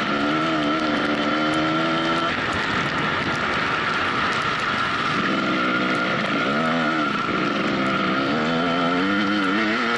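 Dirt-bike engine running under changing throttle: its pitch climbs, falls back, wavers a few times in the middle and climbs again near the end. A steady high whine runs underneath.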